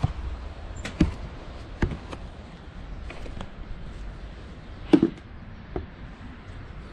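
A few irregular, sharp knocks and clicks, the loudest about five seconds in, over a steady low rumble.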